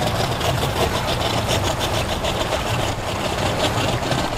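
Boat engines idling steadily in the water, a low even hum.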